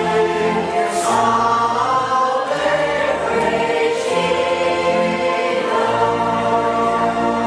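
A church choir singing a hymn in chorus, voices holding long notes over steady low accompanying notes that change about once a second.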